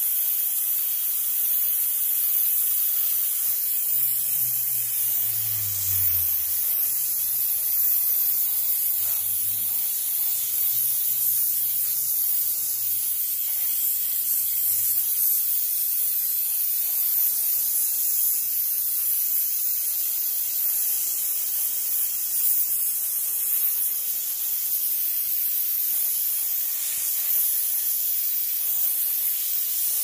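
Steam cleaner jetting steam in a steady hiss that cuts off abruptly at the very end.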